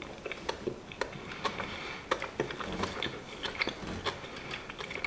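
A person chewing a mouthful of soft sugared pancake close to the microphone: irregular wet mouth clicks and smacks, several a second.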